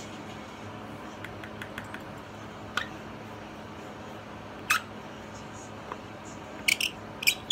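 Light clicks and taps of small makeup containers and tools being handled on a vanity: a few scattered ticks, then a quick cluster near the end. A steady low hum runs underneath.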